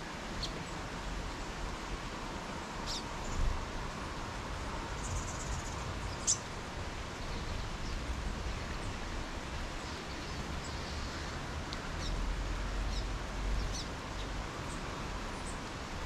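Songbirds at a feeder giving short, high chirps every few seconds over a steady outdoor hiss and low rumble.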